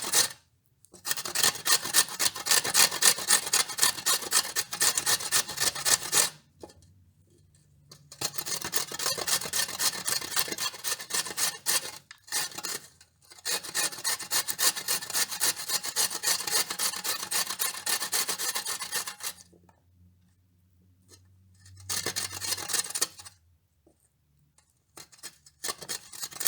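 A carrot being grated: quick, even rasping strokes across a grater, in several long runs with short pauses between them.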